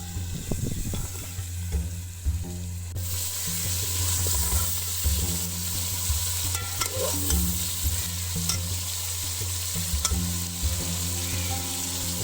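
Chicken frying in a pan, sizzling while it is stirred, with scattered taps and scrapes of the spoon. The sizzle grows louder about three seconds in.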